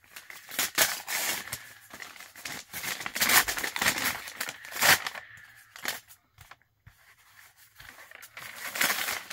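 Kraft paper packaging being torn open and crumpled by hand, with cardboard sliding out, in a run of sharp tearing and crinkling bursts that are thickest in the first five seconds and pick up again near the end.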